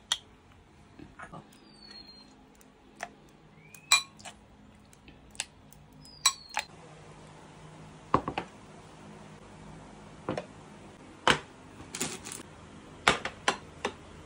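Metal spoon clinking and scraping against a granite mortar as a shrimp paste dip is stirred, in scattered sharp clicks. After that, a few louder knocks and clinks of plates being set down on a table.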